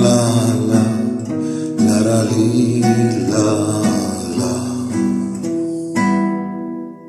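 Nylon-string classical guitar strumming an E minor chord in a steady rhythm; near the end a last chord rings out and fades away.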